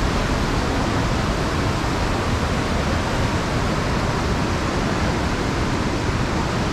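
Steady rushing of a fast-flowing mountain river tumbling over rocks.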